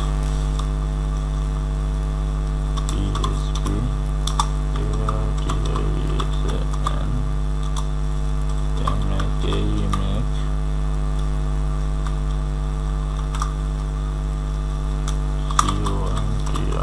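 Steady electrical mains hum on the recording, with scattered computer keyboard keystrokes as a command is typed into a terminal.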